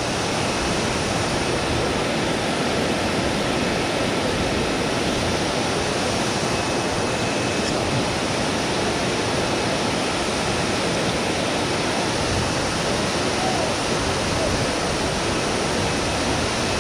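Steady rush of fast-flowing creek water.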